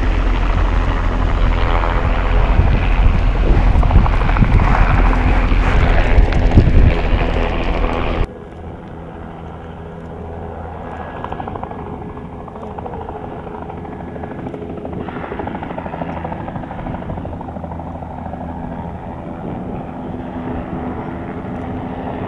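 Loud wind and low rumble of a moving vehicle, cut off suddenly about eight seconds in. Then a quieter, steady drone of a helicopter's rotor and engine.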